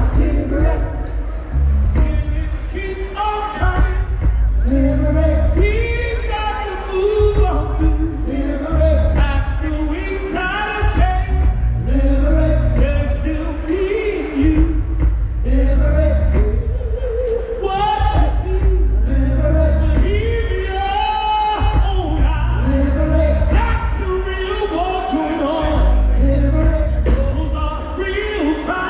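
A choir of male and female voices singing a song live over an amplified band with a strong, pulsing bass.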